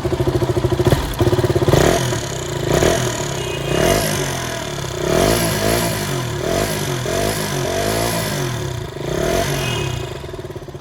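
KTM Duke 200's single-cylinder engine idling, then revved in a string of quick throttle blips, each rising and falling, before settling back to idle near the end. The engine has a newly fitted chain tensioner, and the owner says the irritating noise it had is completely gone.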